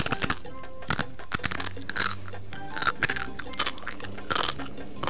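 A person biting and chewing a chicken patty that is meant to be full of bone chips, with loud crunches coming in clusters about once a second, over background music.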